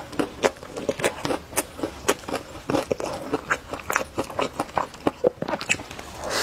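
Close-miked chewing and biting of a fried pancake folded around noodles: wet, sticky clicks and smacks, a few each second, at an uneven pace.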